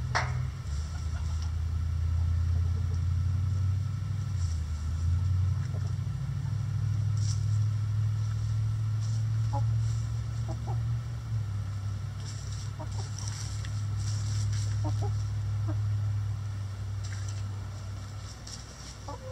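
Backyard hens clucking softly while scratching through pine-needle litter, over a steady low hum that shifts in pitch now and then.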